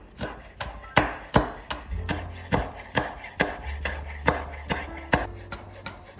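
Chef's knife chopping fresh chives on a bamboo cutting board: a steady run of crisp knife strikes on the board, about two and a half a second.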